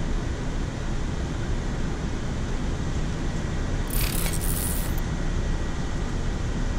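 Steady rushing noise on a Boeing 787-9 flight deck in flight, from airflow and the air-conditioning. A brief burst of higher hiss comes in about four seconds in.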